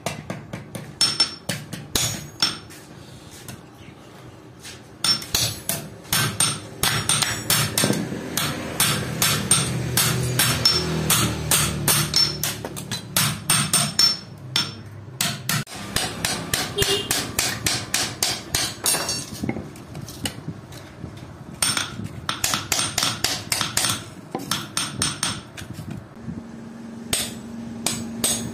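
Hand hammer striking steel on an anvil: quick, ringing blows several a second, in runs broken by a few short pauses, as a sickle blade is worked from old plow-spring steel.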